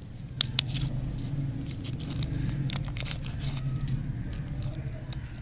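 Wrapper of a chewy stick lollipop crinkling and crackling as it is peeled open: two sharp snaps about half a second in, then a run of small crackles. A steady low hum runs underneath.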